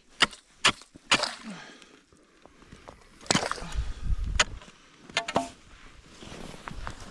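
Sharp clicks and knocks with scraping and some wet handling noise as fishing line is hand-pulled up through a hole in the ice.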